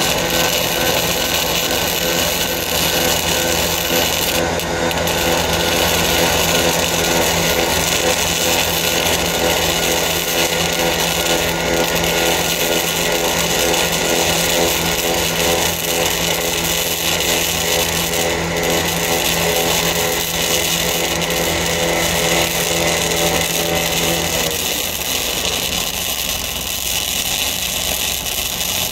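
Flux-core wire-feed welding arc crackling steadily as a continuous bead is run on a steel gusset plate.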